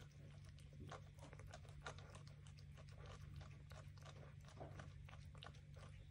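A cat chewing food from a bowl: faint, quick, irregular clicks of its eating.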